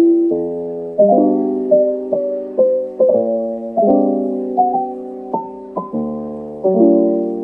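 Background piano music: a gentle melody of struck notes, each fading away, over sustained chords.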